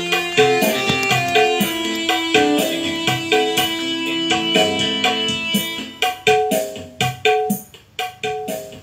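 Recorded music with drum hits, played from a phone through a mixer into a 12-inch loudspeaker with no subwoofer, the EQ set flat. The music grows quieter and more broken up from about six seconds in.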